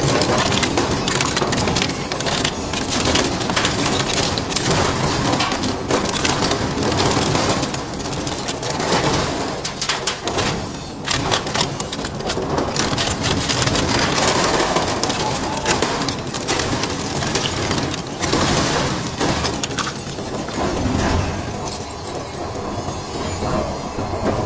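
Twin-shaft industrial shredder tearing apart small engines: a continuous grinding crunch of metal, broken by many sharp cracks as castings snap between the cutters.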